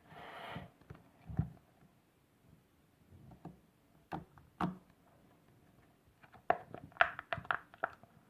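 Slime being handled and squeezed, giving scattered sticky clicks, with a quick run of crackling pops about two seconds before the end.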